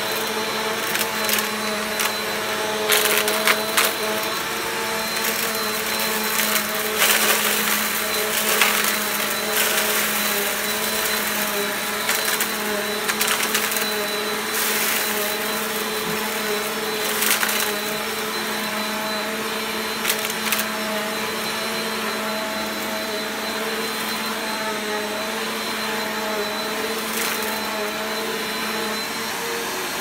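Bissell PowerForce Compact upright vacuum running on carpet with a steady motor drone and a high whine, sucking up a pile of crunchy debris. Irregular sharp crunches and rattles come through as pieces hit the brush roll and fly up into the bin.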